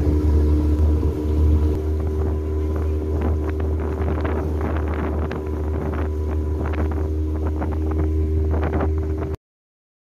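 The outboard motor of a small aluminium boat under way, running at a steady cruising speed with an even low drone, and irregular short rushes of wind or water over it. It cuts off suddenly near the end.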